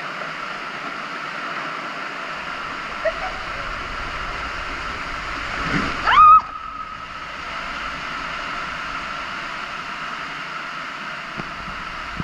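Water rushing steadily as an inflatable raft slides through the AquaDuck water coaster's enclosed tube, with a steady high tone underneath. About six seconds in comes a brief loud burst of splashing with a short rising cry.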